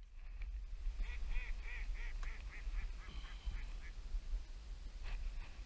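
A run of about a dozen short, nasal duck quacks at about four a second, loudest at first and fading toward the end.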